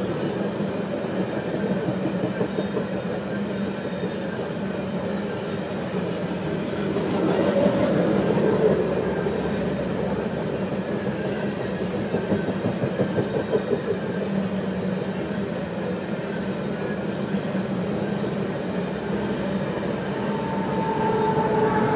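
Loaded coal train of hopper cars rolling by: a continuous rumble of steel wheels on rail, pulsing with the clicks of the wheels over rail joints. Near the end a steady tone joins in.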